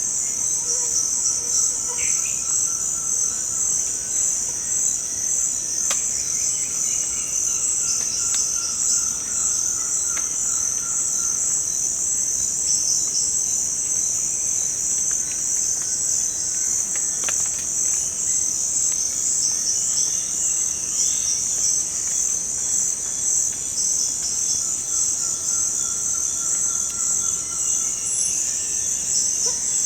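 Amazonian rainforest insect chorus: a dense, steady, high-pitched trilling with a fine pulse. Fainter, lower repeated calls come and go, around two seconds in, from about seven to eleven seconds, and again near the end.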